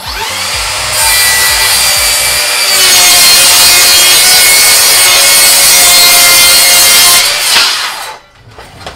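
Makita GSR01 40V 7-1/4-inch cordless rear-handle circular saw spinning up and ripping along 3/4-inch plywood: a loud, steady cutting whine with sawing noise for about six seconds, running through the cut without bogging. Near the end the blade leaves the wood and the motor winds down.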